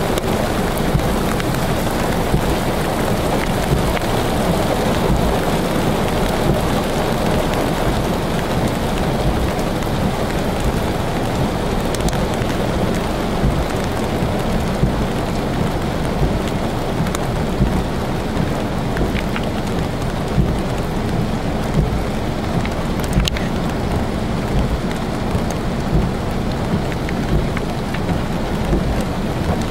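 Heavy rain pouring down on a car and the flooded tarmac around it, heard from inside the car: a steady, dense hiss with scattered sharp drop ticks.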